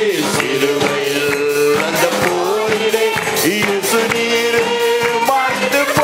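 Church worship song: singing over instrumental accompaniment with a steady percussive beat.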